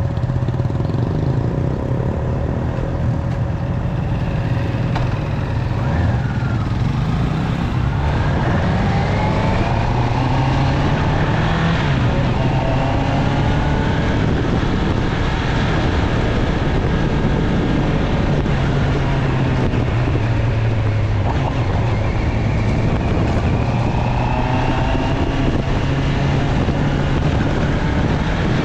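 Honda CB650R's inline-four engine running while the motorcycle is ridden, its pitch rising and falling several times as speed changes.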